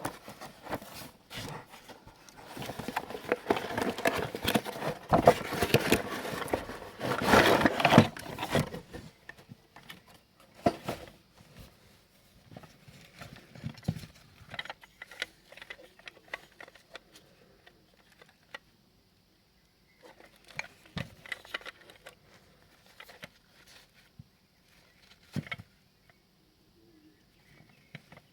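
Handling noise from unboxing: packaging rustling loudly for the first several seconds, then scattered clicks and taps as the corner clamp strap and its parts are handled.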